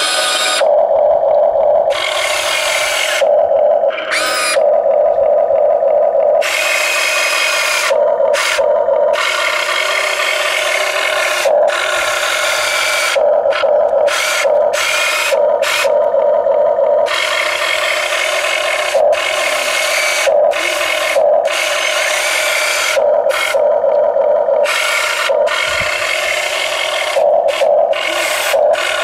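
Huina RC excavator's electric motors and gearboxes whirring in stop-start runs of a second or two as the boom, arm and bucket are worked, over a steady drone that carries on between runs.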